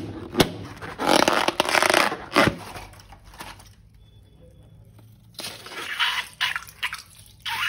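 Slime being handled and mixed: bursts of crackly scraping with a few sharp clicks, a quiet couple of seconds in the middle, then more near the end.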